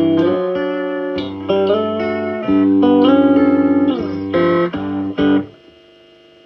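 Electric guitar played through a Davoli D531T valve amplifier: a run of notes and chords with some string bends, one held note pulsing about three seconds in. The playing stops about five and a half seconds in, leaving a faint steady hum and hiss from the amp.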